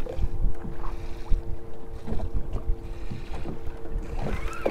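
Wind buffeting the microphone and choppy water slapping against the hull of a small fiberglass skiff, in uneven low rumbles, over a faint steady hum.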